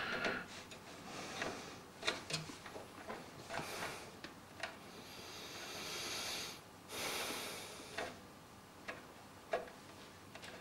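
Irregular small clicks and knocks of cables and plastic connectors being handled inside a PC case, with two longer rustling swishes about five and seven seconds in.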